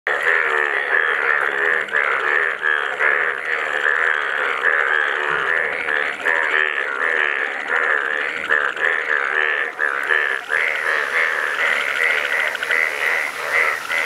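A dense chorus of Indian bullfrogs, the breeding males turned bright yellow, many calling at once in overlapping, pulsing croaks with no break; it is a monsoon mating chorus.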